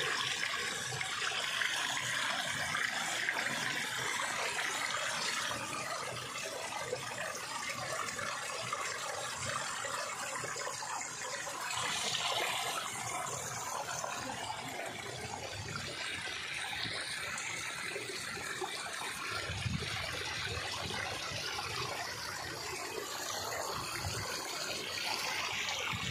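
Water of a small waterfall dropping about two feet onto rock and running over it, a steady rush and splash. A brief low rumble comes about three-quarters of the way through.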